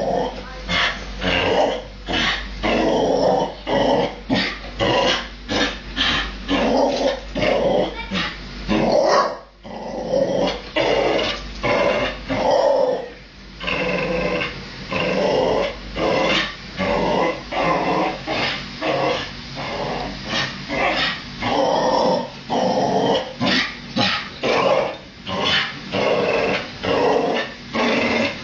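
Dog growling and yipping at a dishwasher in short, loud bursts about twice a second, on and on with only a couple of brief breaks: an agitated, hostile reaction to the machine.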